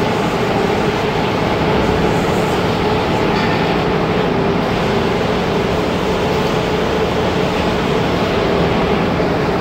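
Rotary drum sawdust dryer and its centrifugal blower running, a loud steady machine noise with a constant hum, as dried sawdust is blown out of the blower's outlet pipe.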